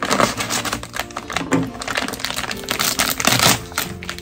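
Plastic bag of partly frozen potting mix crinkling and rustling in an irregular stream of crackles as it is gripped, worked and tipped to pour.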